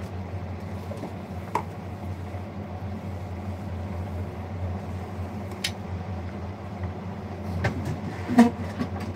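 A steady low hum, with a few brief clicks scattered through and a louder knock near the end.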